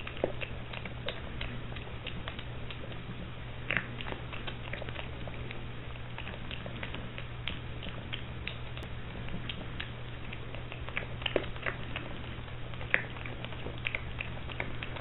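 A piglet crunching and chewing dry pellet feed: many short, irregular crunches and clicks, over a steady low hum.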